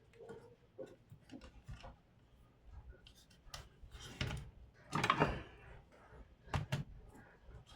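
Plastic laptop parts handled and fitted during reassembly: light taps and clicks, a louder scraping slide from about four to five and a half seconds in, and two sharp clicks shortly after.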